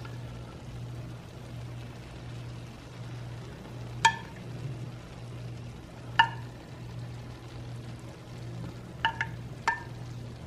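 Syrup being spooned over a pan of baklava: a spoon clinks sharply five times, once about four seconds in, once about six seconds in and three times near the end, over a faint steady hiss and low hum.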